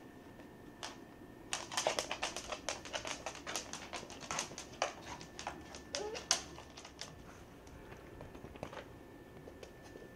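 Basset hound puppies' claws clicking rapidly on a hardwood floor as they scramble about, a dense run of ticks from about a second and a half in until about seven seconds, with a short squeak about six seconds in.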